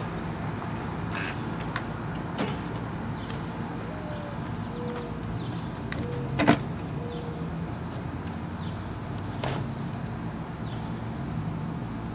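Handling knocks as a portable sewing machine is lifted out of a pickup bed and set down on a wooden table, with one sharp knock about six and a half seconds in, over a steady low hum.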